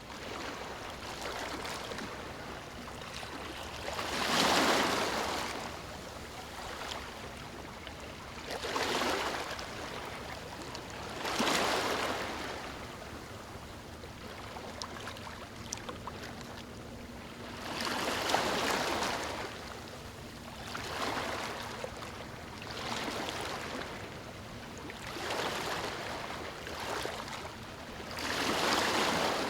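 Ocean waves breaking and washing on a shore, with a steady wash of surf between them; about eight louder breakers swell and fade at irregular intervals a few seconds apart.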